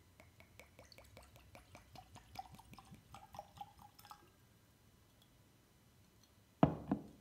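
Whisky glugging out of a bottle into a glass in a rapid run of short glugs for about four seconds. Near the end come two heavy knocks in quick succession.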